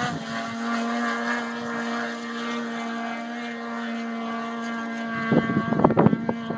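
Snowmobile engine running at a steady, unchanging pitch. Wind buffets the microphone about five to six seconds in.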